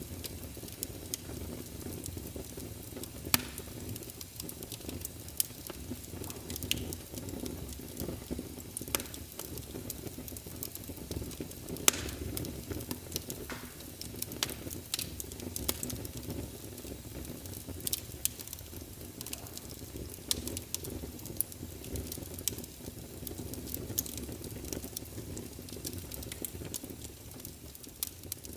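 Wood fire crackling in a fireplace: irregular sharp pops and snaps over a steady low rush, with a louder pop about three seconds in and another near twelve seconds.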